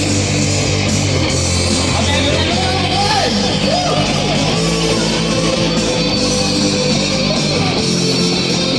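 Live heavy rock band playing loud: distorted electric guitars, bass guitar and a drum kit, with a singer's voice over them.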